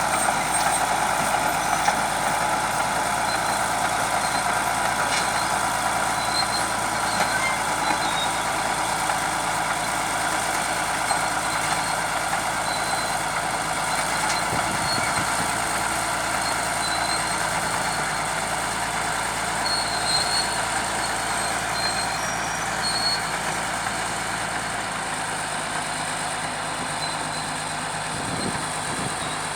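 Bulldozer running steadily under work, a continuous heavy machine noise with short high-pitched squeaks now and then.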